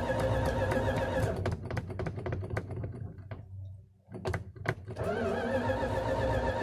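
Gasoline engine running on diesel fuel, running with a warbling tone, then dying away about a second and a half in with scattered clicks until it goes nearly silent. After a few more clicks it picks up again about five seconds in and runs steadily on.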